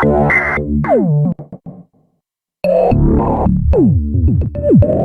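Synthesizer sound effects: a loud pitched synth hit with falling pitch sweeps that stutters out, a short silence, then a second synth effect about two and a half seconds in, full of repeated downward-gliding tones.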